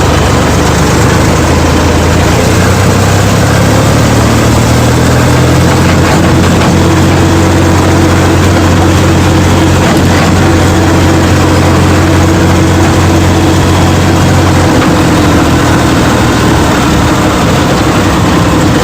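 Sonalika tractor's diesel engine running steadily under way, its silencer fitted with a turbo whistle, together with the rattle of the trolley it is pulling.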